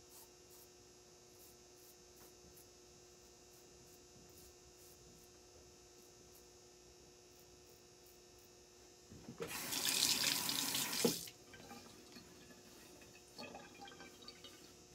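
A bathroom tap runs into the sink for about two seconds, starting about nine seconds in, then is shut off. Before it, a double-edge safety razor makes faint short scrapes on stubble, over a low steady hum.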